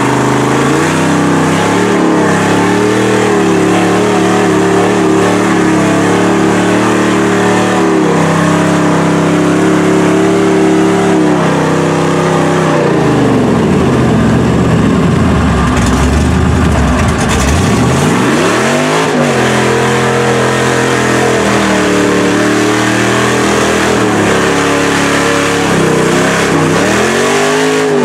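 Lifted Chevy Silverado mud truck's LS V8 revving hard as its tyres spin in deep mud. The revs hold high, fall away about halfway through, sweep back up and hold, then dip and climb once more near the end.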